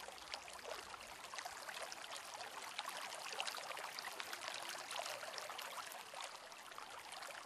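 Faint water ambience: a steady trickling hiss speckled with many small drop-like ticks.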